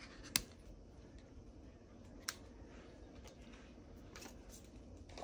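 Scissors snipping the ends of thin silver ribbon trim: one sharp snip a moment in, then a second, fainter click about two seconds later, with faint handling noise between.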